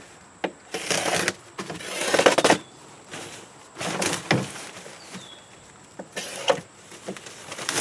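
Non-woven landscaping fabric being cut with a knife and handled: several short rasping rips and rustles, each under a second long.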